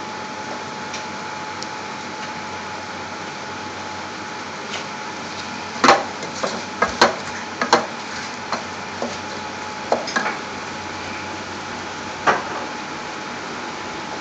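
A wooden spoon stirring a thick onion-and-spice masala in a metal pot, frying the spices through. The spoon knocks and scrapes sharply against the pot several times, from about six seconds in, over a steady hiss.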